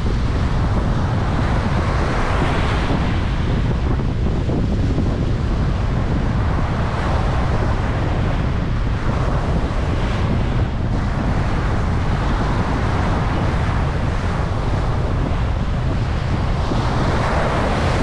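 Small waves breaking and washing up a sandy beach, the surf swelling and fading every four or five seconds, over a steady rumble of wind on the microphone.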